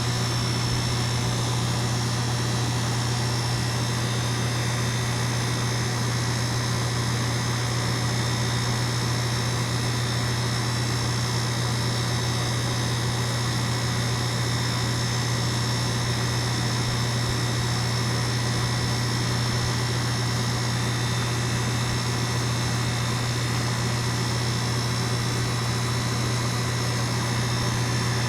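Goodman heat pump's indoor air handler running in cool mode: a steady blower rush over a strong, unchanging low hum.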